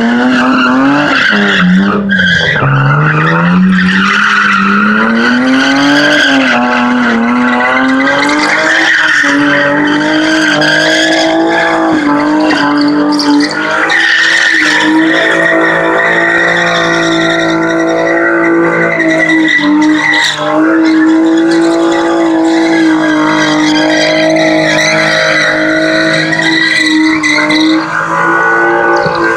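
A car sliding on concrete under heavy wheelspin, its tyres squealing, while the engine is revved hard. The revs climb in the first second, dip and climb again over the next few seconds, then are held fairly steady at high revs for the rest of the slide.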